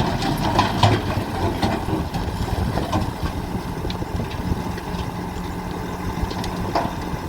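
Heavy diesel engine of road construction machinery running steadily, with a few short sharp knocks in the first few seconds.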